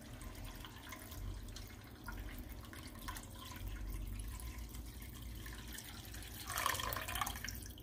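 Water being poured steadily into a cooking pot.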